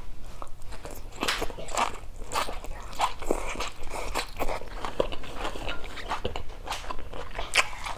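Close-up sounds of a person chewing a mouthful of rice and stir-fried green beans: many short wet clicks and smacks of the mouth, irregular and continuous.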